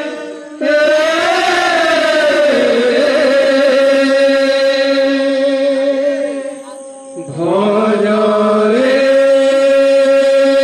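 Devotional kirtan chant: voices singing long, drawn-out notes that break off twice briefly, then glide upward and settle into a steady held note for the last few seconds.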